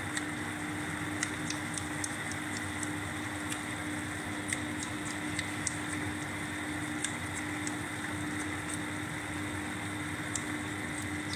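Diced beef and carrots sizzling in a frying pan as oyster sauce is poured in: a steady hiss with scattered crackling pops, over a low steady hum.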